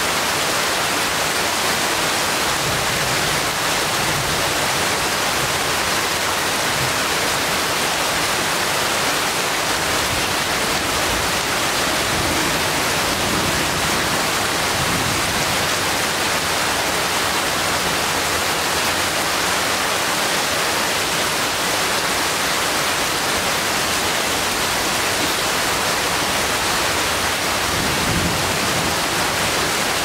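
Steady rain falling on forest trees and leaves: an even, unbroken hiss.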